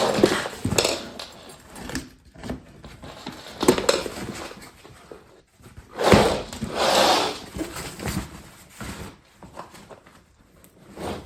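Plastic suitcase wheel hub and housing being worked into place by hand: irregular scraping and rubbing with scattered clicks. The loudest stretch of scraping comes about six seconds in.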